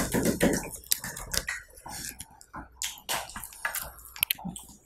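Chewing and crunching of chocolate-filled biscuits, with irregular crackles and mouth clicks.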